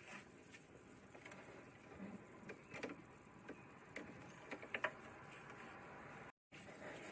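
Faint, scattered clicks and knocks of gloved hands handling plastic trim and parts in a car's engine bay, the sharpest pair a little before the five-second mark. The sound cuts out completely for a moment near the end.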